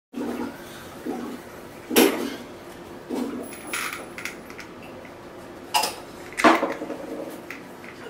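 Hard plastic bird bath tub being picked up and handled on a tabletop: a few sharp clacks and knocks, the loudest about two seconds in and two more later on, with light rattling between.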